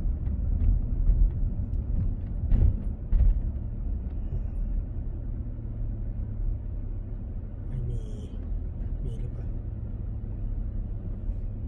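Car interior noise while driving slowly: a steady low engine and road rumble with a low hum, and two sharp knocks about two and a half and three seconds in.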